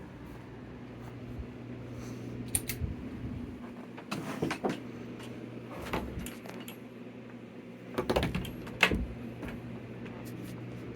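Scattered light clicks and rattles of something being handled, over a low steady hum.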